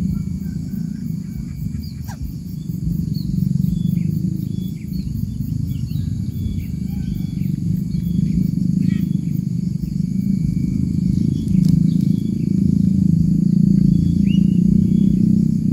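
Steady low rumbling noise, with scattered short high chirps from small birds and a steady high-pitched insect drone over it.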